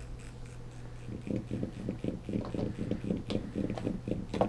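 Small wand massager's vibration motor running: a steady low hum that switches about a second in to a rapid pulsing mode of about six pulses a second. A single knock near the end.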